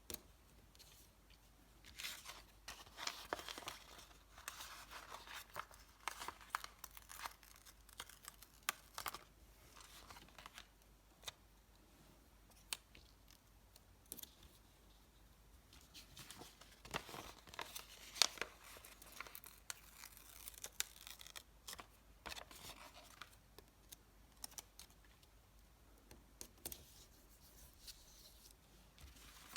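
Stickers being peeled off and pressed down: sticky tearing and crinkling of sticker paper in irregular bursts, with sharp little clicks and taps between them.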